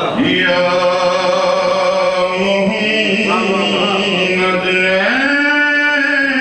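A man chanting devotional Urdu verse in long, drawn-out melodic notes. He holds one note for several seconds, then steps up to a higher held note about five seconds in.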